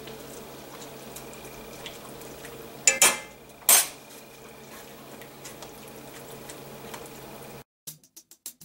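Caramelized onions being emptied from a plastic container into a pan of simmering gravy: two short, loud clatters a little after three seconds in, over a steady low hum. The sound cuts off suddenly near the end, leaving a few faint ticks.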